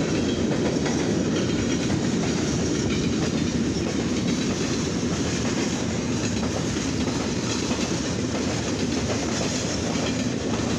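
A rail train's freight cars, flatcars loaded with rail racks, rolling steadily past, with the wheels running on the track in a continuous rumble.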